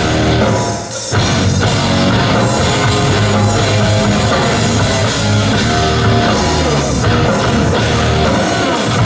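Rock music with electric guitars and a drum kit, loud and continuous, with a brief dip about a second in.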